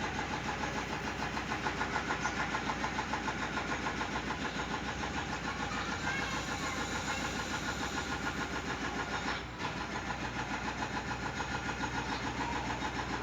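An engine running steadily with an even, rapid throb, briefly cut off about nine and a half seconds in.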